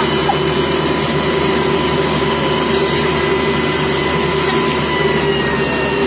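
Excavator's diesel engine running steadily at close range, with a steady whine over the low engine hum.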